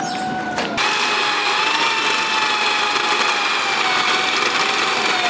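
Electric drill running steadily, drilling through a fibre-cement roof sheet into the steel purlin beneath: a steady whine with grinding that gets heavier about a second in, its pitch dropping slightly near the end.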